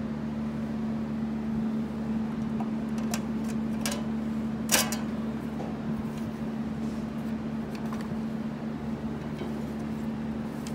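A steady machine hum on one low tone, with a few light clicks over it, the sharpest about five seconds in.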